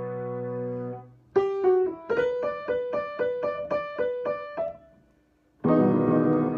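Solo piano playing: a held chord dies away, then a run of short, detached notes and chords at about four a second, a brief pause, and a loud full chord struck near the end and left ringing.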